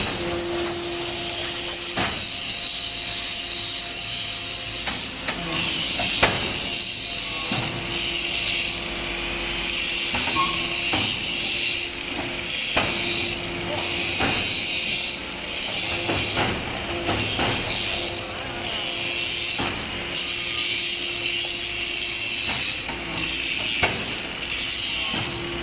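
HBY4-10 automatic interlocking compressed earth brick machine running through its pressing cycle. It makes a steady hum with a hiss over it, and a dozen or so sharp metal knocks and clanks come at irregular intervals as the press and mould work.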